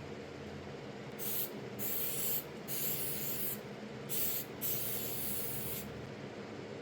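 About five short bursts of hissing, scratchy noise over roughly five seconds, heard over a steady low shop hum.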